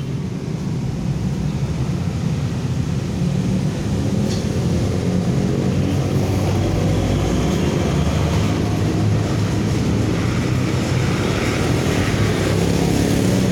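The 6 HP Mitsubishi petrol engine of a walk-behind concrete and asphalt cutter running steadily, growing a little louder over the first few seconds and then holding.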